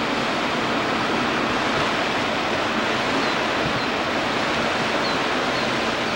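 Steady rushing of small waves washing onto a sandy river beach, even and unbroken.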